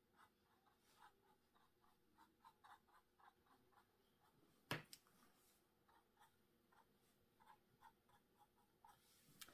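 Faint, irregular strokes of a filbert paintbrush dabbing acrylic paint onto a slick canvas print, with one light knock about halfway through.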